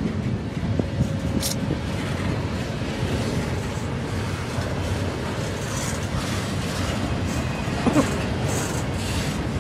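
Freight train rolling past at track side: a steady rumble and rattle of wheels on rail, with a sharp clank about eight seconds in.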